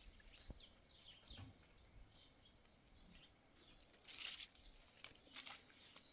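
Near silence, with a few faint, quick high chirps in the first second and a half and two brief soft rustles later on.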